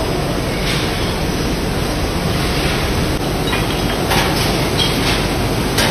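Steady din of a glass-bottle production line, with bottles clinking and rattling against each other on the conveyors. A few sharper clinks stand out past the middle and near the end.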